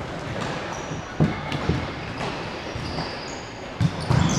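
Futsal ball being kicked and bouncing on a hard court, a few sharp thuds echoing in a large sports hall: one about a second in, another shortly after, and two close together near the end. Short high squeaks of shoes on the court come in between.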